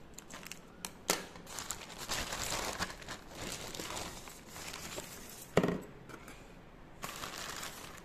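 Plastic courier bag being cut with scissors, then its plastic packaging crinkling and rustling as it is handled. Several sharp clicks run through it, and a loud knock comes about five and a half seconds in.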